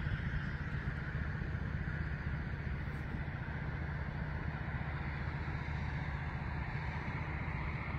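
Steady low rumble of motor-vehicle engine noise, even throughout with no passing swells.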